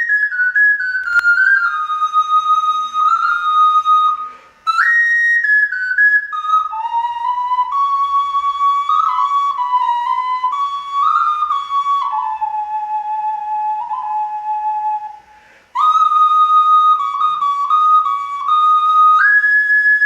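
A handmade clay whistle played as a melody: one clear, pure, flute-like tone stepping up and down between notes, with a brief pause for breath twice.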